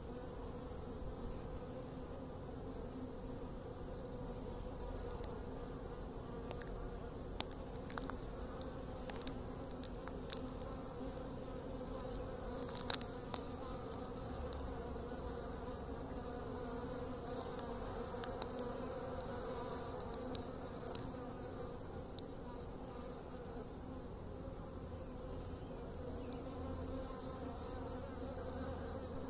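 Steady buzzing hum of insect wings, with a few short sharp clicks near the middle.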